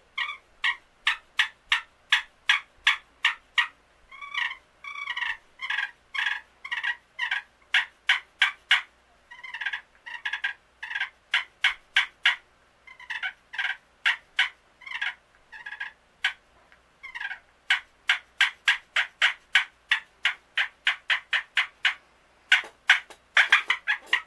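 Homemade friction turkey call, a slate surface over a hollowed cedar chamber set in a dip can, worked with a wooden striker: a long series of short turkey yelps and clucks, with a faster run of quick notes near the end.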